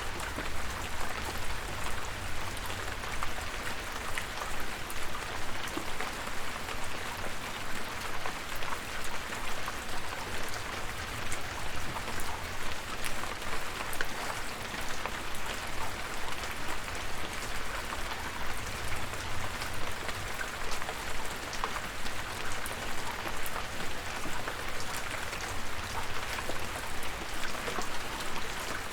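Steady rain falling, an even hiss with many individual drops ticking through it, over a low rumble.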